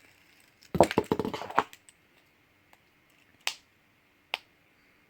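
Handling of a plastic pop-it fidget spinner: a quick cluster of sharp plastic clicks and crackles lasting about a second, then two single clicks about a second apart.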